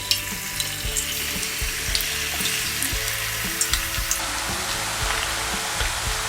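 Thin vegetable slices deep-frying in hot oil: a steady sizzle with scattered crackles and pops, growing denser about four seconds in.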